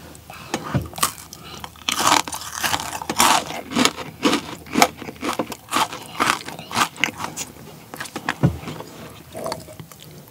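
Close-miked crunching and chewing of a homemade chocolate-coated Pepero biscuit stick with sprinkles: a quick run of crisp crunches that thins out about three-quarters of the way through.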